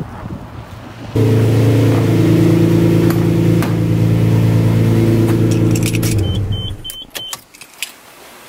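A motor hums loudly at one steady pitch, starting suddenly about a second in and stopping after about five and a half seconds. Three short high beeps and a few sharp clicks follow near the end.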